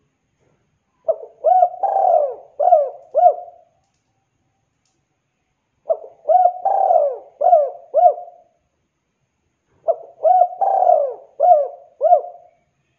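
Spotted dove (tekukur) cooing in three phrases, each of about five quick coo notes with a longer note in the middle. The phrases come about four seconds apart.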